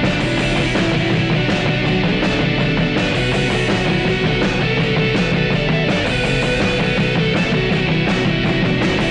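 Loud rock music from a band: electric guitars over a steady drum beat.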